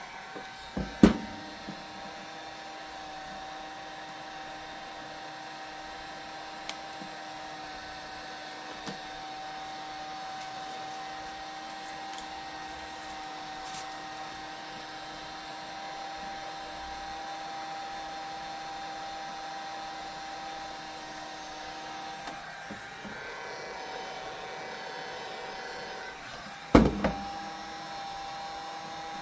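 Electric heat gun running steadily with a constant whine, heating the tablet's screen to soften its adhesive. A sharp knock comes about a second in and another near the end.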